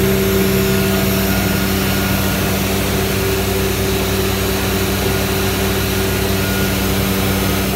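Techno CNC router running steadily: a constant hum over an even rushing noise.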